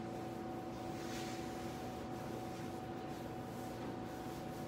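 Steady electrical hum in the workshop, with faint swishes of a hand sliding over the sheet-metal quarter panel, the clearest about a second in.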